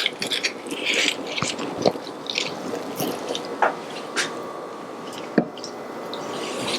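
Kitchen utensils handling roasted vegetables as they are plated: scattered light clicks and soft scrapes.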